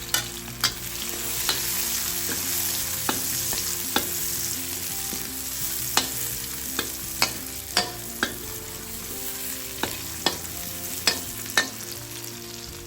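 Chopped garlic, chilli and ginger sizzling in hot oil in a wok, with a spatula clacking and scraping against the wok at irregular moments as it is stirred. The sizzle swells about a second in.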